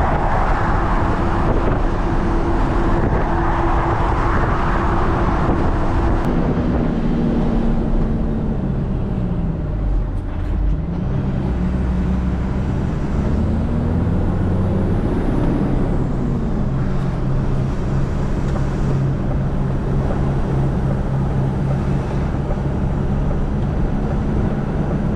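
DAF combi gully tanker's diesel engine running on the move: its note drops about a quarter of the way in, climbs again, then holds steady.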